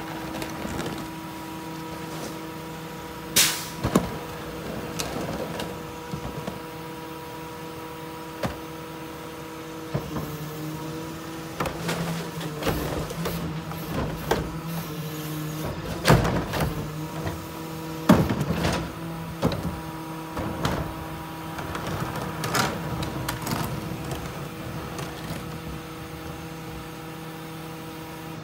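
Ez-Pack Apollo rear-loader garbage truck idling with a steady hum while items are loaded at the rear: sharp clanks and bangs as cardboard goes into the hopper and the hydraulic cart tipper lifts and dumps a wheeled trash cart, the loudest bangs about two-thirds of the way through. The hum shifts slightly about ten seconds in, as the tipper starts working.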